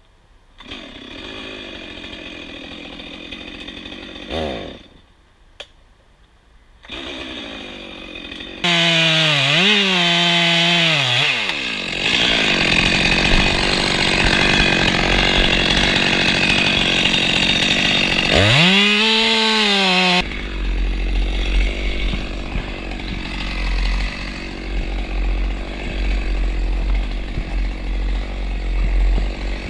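Top-handle chainsaw cutting through a beech stem. It runs quietly for the first few seconds, then runs loud and revs down and back up twice, and cuts off abruptly about two-thirds of the way in. Lower handling and rustling noise follows as the cut section of trunk is pushed.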